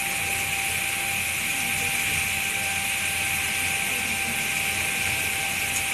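Fountain water jets spraying and falling back onto the water: a steady, even rushing hiss, with a thin steady tone held underneath.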